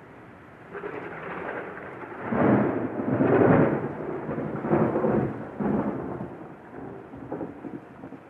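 Rolling thunder. A rumble begins about a second in, swells into several loud peals in the middle and dies away near the end, over a faint steady hiss.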